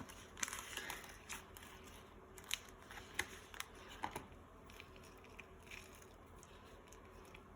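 Faint sticky clicks and crackles of chocolate pudding and cornstarch slime being kneaded by hand, coming irregularly and thinning out after about four seconds. The mixture is just starting to form a dough-like consistency.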